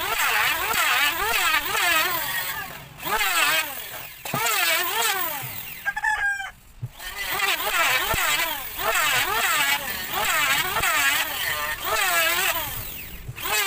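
Handheld electric wood planer running against a board edge, its motor pitch dipping and recovering about three times a second as it is pushed in short strokes. It stops for a moment about six seconds in, when a short bird call is heard, then starts again.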